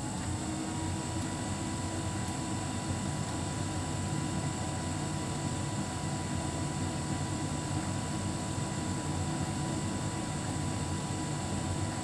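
Hotpoint heat pump tumble dryer running with a steady mechanical hum. Right at the start a thin whine rises and then holds at one steady pitch.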